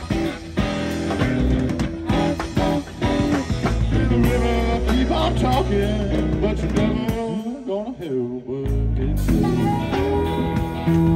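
Live blues-rock band playing an instrumental passage: electric guitars, bass, drums and a harmonica. Shortly after two-thirds of the way through, the bass and drums drop out for about a second, then the full band comes back in.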